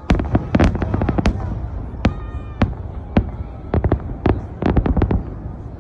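Fireworks salute going off: a rapid, irregular series of sharp bangs, several coming in quick clusters, over a steady low rumble.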